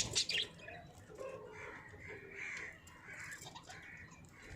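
Budgerigars chirping and warbling: a few sharp, high chirps at the start, then a string of short warbled calls about once a second.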